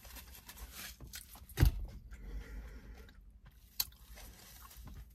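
Faint mouth sounds of a person chewing a bite of a soft-shell crab sushi hand roll, with one dull thump about a second and a half in and a small click near the end.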